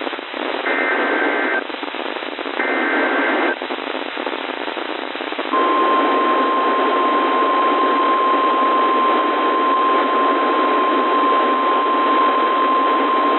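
NOAA Weather Radio emergency alert over a radio with steady static hiss. It begins with two short bursts of SAME data-header tones, about a second each and two seconds apart. After a couple of seconds of static, the steady single-pitched 1050 Hz warning alarm tone starts about five seconds in and holds.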